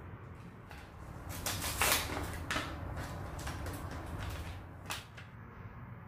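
Hands handling small household objects: a run of short rustling scrapes, loudest about two seconds in, then a few fainter ones and a single sharp click near the end.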